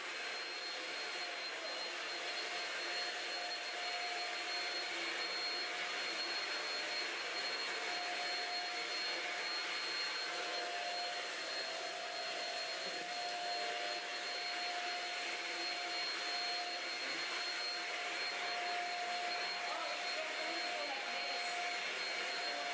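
Shark cordless stick vacuum running steadily on a hardwood floor: a steady rush of air with a high thin whine and a lower hum that wavers slightly.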